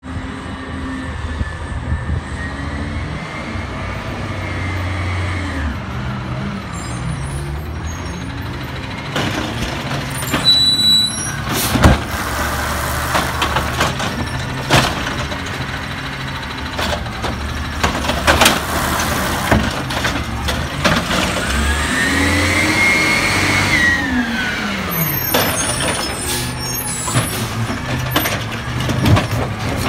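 Automated side-loader garbage truck (Peterbilt 320 on compressed natural gas) running as it pulls up and works its side arm: the engine revs up and back down twice as the hydraulic arm cycles, with a hiss of air brakes and a sharp bang about twelve seconds in.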